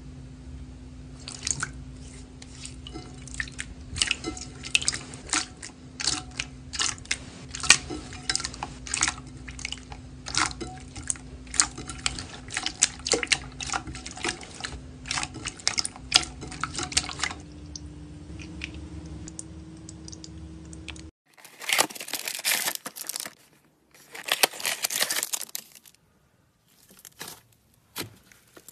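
Slime being squeezed and poked by hand, making many sharp wet clicks and pops. About 21 seconds in, the sound cuts to louder crackling bursts with short pauses between them, as a different slime is worked.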